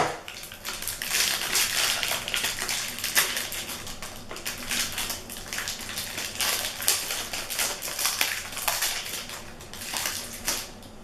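Plastic lollipop wrapper crinkling as it is unwrapped by hand, a dense irregular run of small crackles that eases off near the end.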